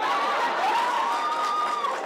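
Crowd laughing and calling out, with one voice holding a long high call through most of it.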